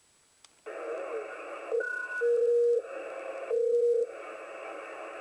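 Shortwave receiver audio from an ICOM IC-703 transceiver: the audio is cut off at first, with a single click, then band noise comes back with garbled signals and two loud steady whistle tones about half a second long each.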